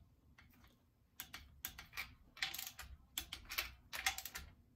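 Socket wrench ratcheting in short, irregular runs of sharp clicks as the nuts on an air-cooled VW engine's oil pump cover plate are tightened to torque.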